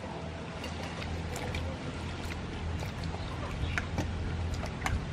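Light clicks and knocks of vegetables being handled and dropped into a stainless steel bowl, more frequent in the second half, over a steady low outdoor rumble.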